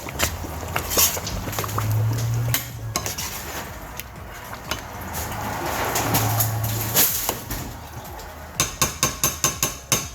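A spoon clinking and scraping against a cooking pot while stirring stew, with a quick run of light clinks near the end.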